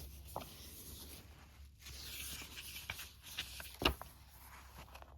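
Paper rustling as pages and glossy press-kit sheets are handled and turned, with small clicks and one sharp tap about four seconds in.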